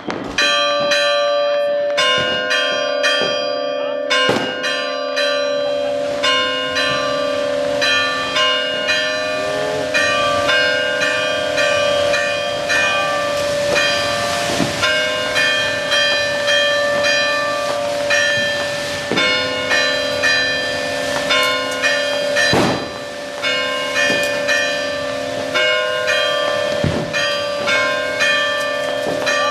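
Church bells ringing rapidly and without pause, several bells struck over and over. A handful of sharp bangs from rockets going off cut through the ringing.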